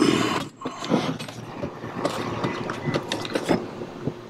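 Snap-on lid of a plastic pail being pried off around its rim: a rapid run of plastic clicks and creaks, loudest at the start.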